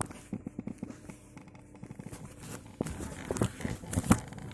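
Irregular clicks, knocks and rustling of plastic objects handled right at the microphone, with a cluster of sharper knocks near the end.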